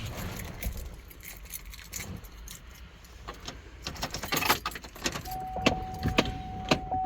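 Clicks and rattles in a 2005 GMC Envoy's cabin as the gear shifter, just reconnected with a new cable bushing, is worked by hand. A steady electronic tone starts about five seconds in.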